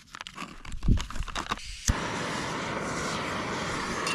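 Canister gas stove burner: light handling clicks and crinkles, then a sharp click about two seconds in and the steady rushing hiss of the burner flame.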